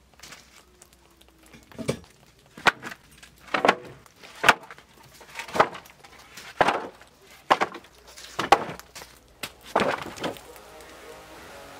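Logs and old boards dropped one by one onto a steel folding sawhorse: about nine or ten heavy wooden knocks, roughly one a second, with bits of bark and rotten wood falling.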